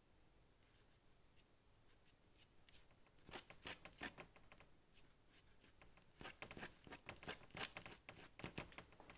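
Paintbrush scratching and dabbing paint onto paper in quick, short strokes. The strokes come in two bursts, one about three seconds in and a longer one from about six seconds until near the end.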